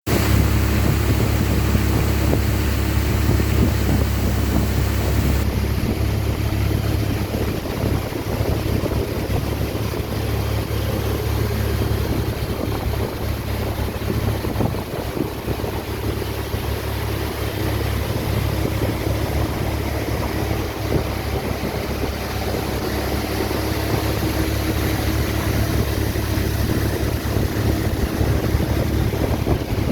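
A motorboat underway on a river, its engine running steadily under heavy wind buffeting on the microphone. The hiss changes slightly about five seconds in.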